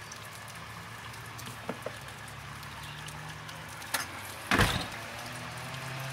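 A distant lawn mower engine droning steadily under the hiss of falling rain, with a few light clicks and one brief, loud bump about four and a half seconds in.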